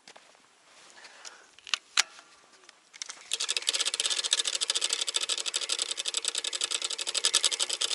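Two sharp clicks about two seconds in, then a spinning reel being cranked, a fast, even ticking that starts about three seconds in and keeps on as the line is wound in.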